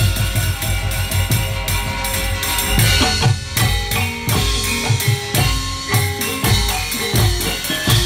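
Gamelan dance accompaniment with busy drumming: rapid, loud drum strokes over sustained ringing metallophone tones.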